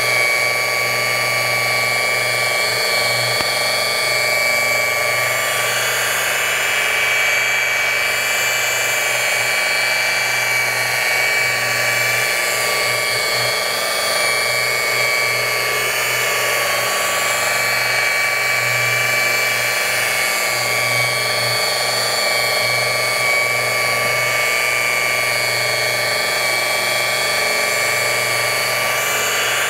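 Rotary polisher running with a wool pad, compounding a car hood's paint: a steady motor whine that wavers slightly in pitch as the machine is worked across the panel.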